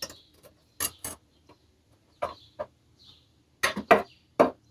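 Steel grill flame guards being set down over the burners: a series of sharp metal clanks and clinks in small groups, with quiet gaps between.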